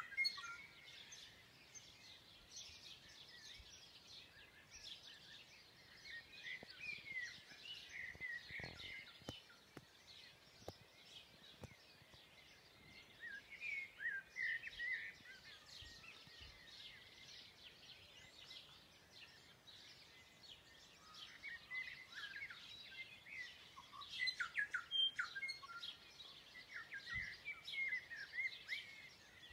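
Chorus of several forest birds singing, with overlapping chirps, twitters and warbling phrases that come in louder clusters.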